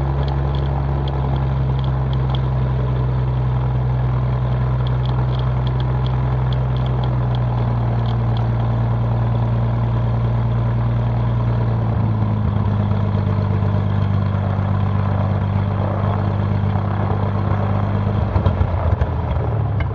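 Cessna 182P Skylane's six-cylinder Continental O-470 engine and propeller idling during a slow taxi on grass. The pitch shifts slightly about twelve seconds in, and near the end the engine wavers and drops away.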